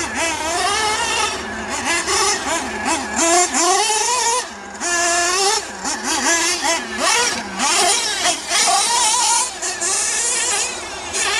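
Mugen MBX6T 1/8-scale RC truggy's small nitro engine revving up and down as it is driven, its pitch rising and falling with the throttle, with a couple of short drops where the throttle is let off.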